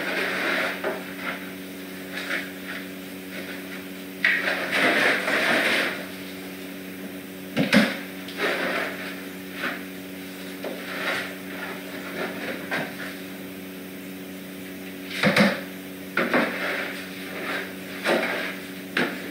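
Scattered knocks, bumps and rustling handling noises over a steady low hum, with two sharper knocks about eight and fifteen seconds in.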